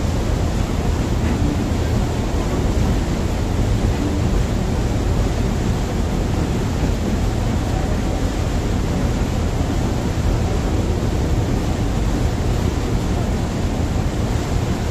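Passenger ferry under way: a steady rush of wake water churning along the hull over a low engine rumble, with some wind on the microphone.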